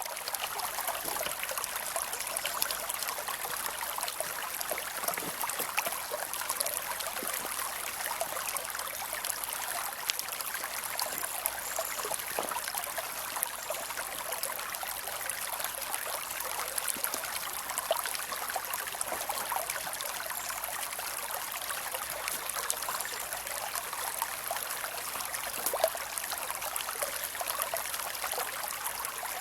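Creek water flowing and trickling over rocks in a steady babble.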